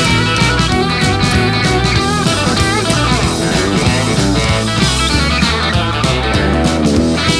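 Rockabilly band in an instrumental break: lead electric guitar playing bent notes over a steady upright double bass and drum rhythm, with no singing.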